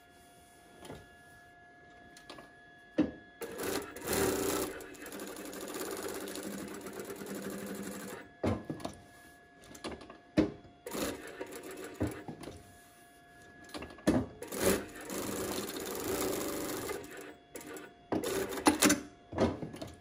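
Brother Nexio S7300A single-needle lockstitch industrial sewing machine stitching through fabric. It sews in two longer runs of a few seconds each, broken by short bursts of stitching and sharp clicks as the seam is worked around. A faint steady tone carries on between runs.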